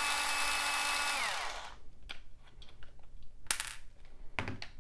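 Small electric screwdriver running steadily as it backs screws out of a plastic RC-car transmission case, its motor winding down and stopping about a second and a half in. A few light clicks and knocks of the parts being handled follow.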